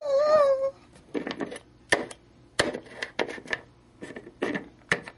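Hard plastic Littlest Pet Shop figures clicking and tapping on a tabletop as they are moved and hopped by hand, in irregular clusters of sharp taps. It opens with a brief, loud wavering vocal tone.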